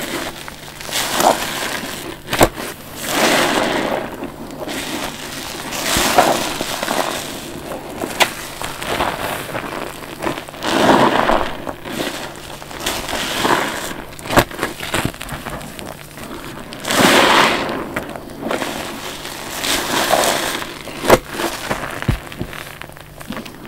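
A wet sponge soaked with soapy cleaning solution being squeezed by hand again and again. Each squeeze is a wet squelch with crackling foam, coming every two to three seconds, with a sharp click now and then.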